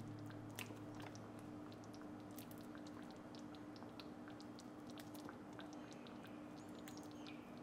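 Fingers snapping the stems off fresh green chillies: a scatter of small, crisp clicks and snaps, over a faint steady hum.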